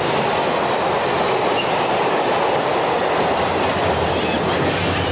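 Long Island Rail Road passenger train passing close at speed: a steady rush and rumble of wheels on rail, with a deeper low rumble growing about four seconds in.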